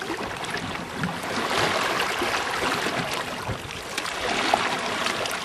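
Sea water splashing and washing at the surface beside a boat as a hooked ray thrashes while being drawn up, a steady hiss of churned water with small splashes.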